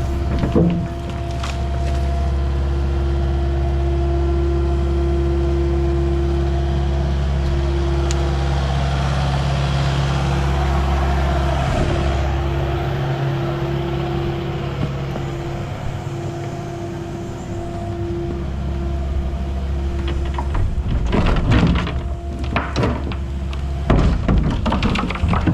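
A heavy engine running steadily at a constant pace, with a few sharp knocks and clatter near the end.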